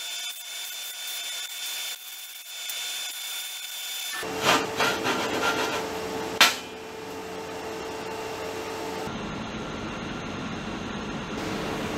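Handheld sander rubbing over a steel plate, in several stretches that change abruptly, with a thin high whine at first and a sharp knock about six and a half seconds in.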